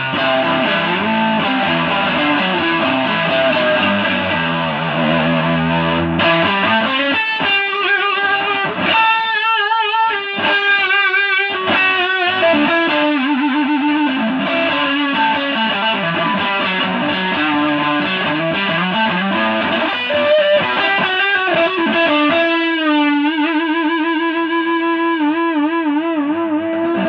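Stratocaster-style electric guitar played through effects with some distortion, running melodic lines. Held notes waver with wide vibrato about nine seconds in and again near the end.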